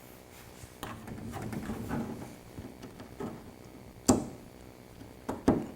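Handling noise from a door panel, then a sharp snap about four seconds in and two more close together near the end, as metal push-in panel clips are pressed into and pulled out of their drilled holes.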